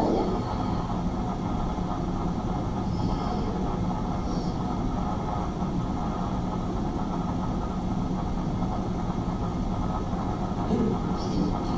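Steady, low rumbling soundscape from the show's live sound, with a few faint high tones about three and four seconds in.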